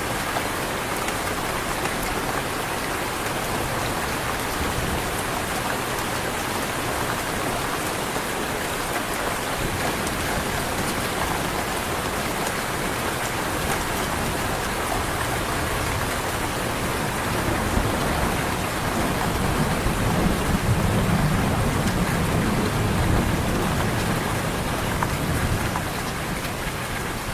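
Heavy rain falling steadily, with a low rumble of thunder that swells about two-thirds of the way through and dies away near the end.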